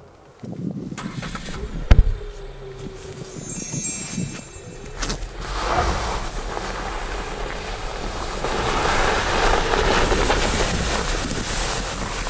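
A car door slams shut about two seconds in, followed by a short electronic chime. Then the Chery Tiggo 8's engine and tyres grow louder as the SUV pulls away through snow.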